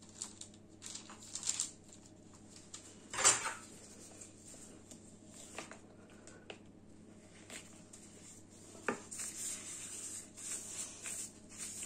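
Metal spoon knocking and scraping against a plastic mixing bowl as cookie dough is scooped and rolled by hand. The loudest knock comes about three seconds in, and another sharp one near nine seconds.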